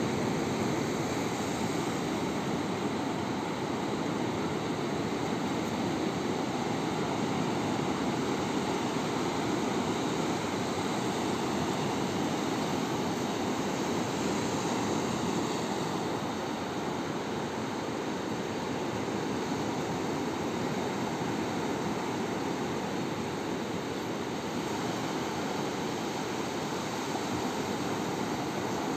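Steady roar of breaking sea surf, an even rushing noise with no single waves standing out.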